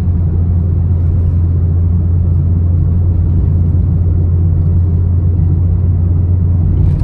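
Loud, steady low rumble of a car on the move: road and engine noise heard while driving.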